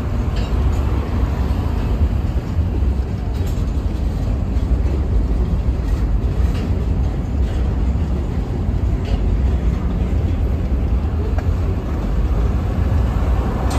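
FEC freight train of hopper cars rolling past, a steady low rumble of wheels on rail with a few faint, irregular clicks.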